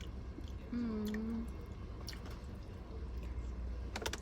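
Close-miked eating sounds: wet, squishy mouth noises with scattered sharp clicks of lips and teeth, a cluster of them near the end. There is a brief hummed vocal sound about a second in.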